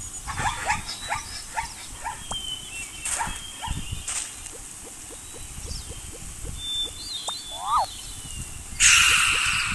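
Animal sound effects: a run of short, bark-like animal calls over faint bird chirps. Near the end comes a loud burst of hiss-like noise lasting about a second.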